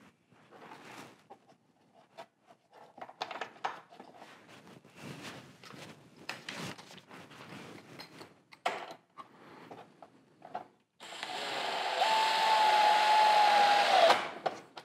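Light clicks and knocks of parts being handled on a plastic bumper. About eleven seconds in, a cordless drill with a socket extension runs steadily for about three seconds with a whine, driving a bolt into the plastic bumper bracket with its clutch set low.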